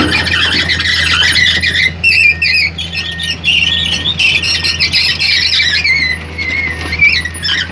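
Komatsu PC210 excavator working: a steady low engine hum under loud, wavering high-pitched metallic squealing and squeaking from the machine.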